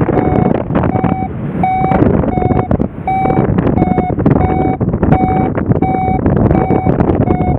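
Electronic beeper sounding short tones about twice a second, some slightly higher or lower in pitch, over heavy wind buffeting on the microphone.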